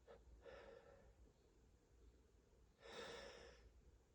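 Faint breathing from a man caught in a dust-triggered sneezing fit: a soft breath just after the start and a longer, louder breath about three seconds in, with near silence between.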